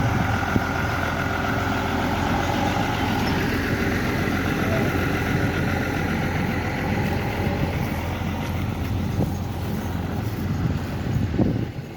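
New Holland 80-66 tractor's diesel engine running steadily while pulling and driving a Nardi hay baler, with the baler's machinery running along with it. A couple of brief knocks, and the sound drops away just before the end.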